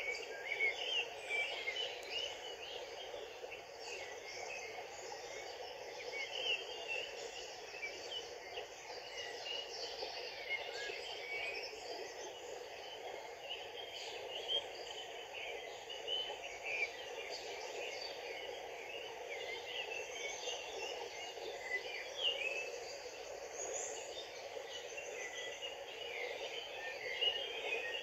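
Shallow stream running over rocks, a steady rush of water, with small birds chirping in short scattered calls throughout.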